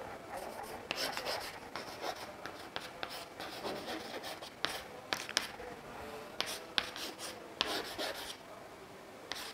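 Chalk writing on a chalkboard: short, irregular scratchy strokes with sharp taps where the chalk meets the board.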